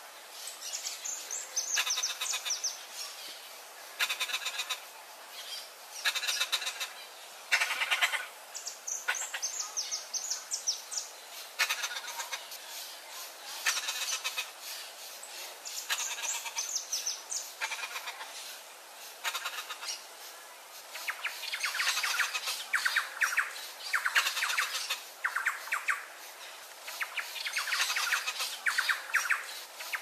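Turquoise-fronted parrots (Amazona aestiva) giving repeated harsh, raspy calls in short bursts every second or two, coming faster and almost without a break over the last third.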